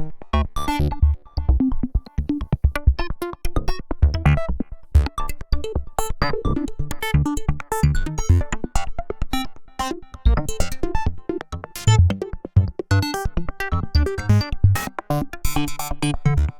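Arturia MiniFreak, a six-voice, two-oscillator polyphonic synthesizer, playing a preset: a fast run of short staccato notes over low bass notes.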